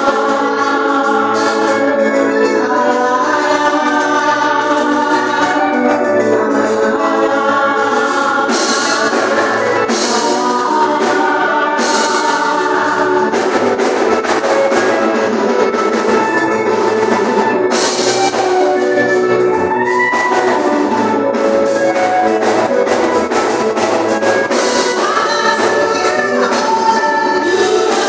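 Church congregation singing a gospel praise song together over instrumental accompaniment, loud and continuous, with sharp percussive hits scattered through it.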